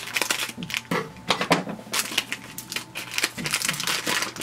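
Crinkling, rustling and tearing of an ink cartridge's plastic-foil pouch as it is cut open with scissors and the cartridge is pulled out, in a quick run of irregular crackles.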